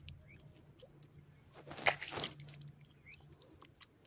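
Wet green algae bait being squeezed and kneaded by hand: faint sticky clicks and squelches, with one louder wet squish about two seconds in.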